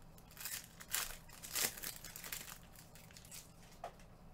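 Plastic trading-card pack wrappers crinkling as packs are handled and torn open: a run of short crinkles through the first half, then a few lighter ones.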